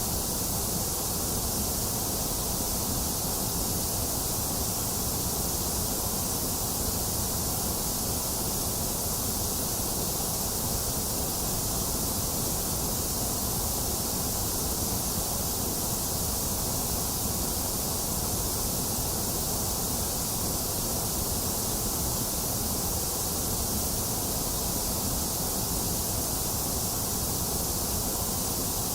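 Box fan running together with falling rain: a steady, unchanging hiss strongest in the high frequencies, with no thunder.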